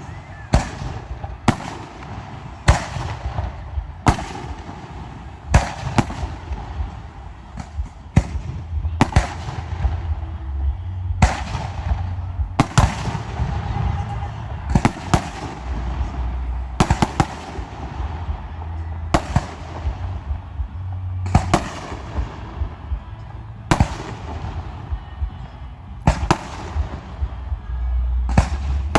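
Professional aerial fireworks display: shell bursts go off one after another, a sharp bang every second or two, each with a brief echoing tail over a continuous rumble.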